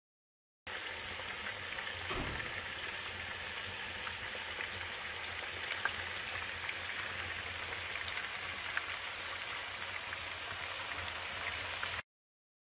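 Wood fire burning: a steady hiss with scattered small crackles and pops. It starts abruptly about a second in and cuts off abruptly just before the end.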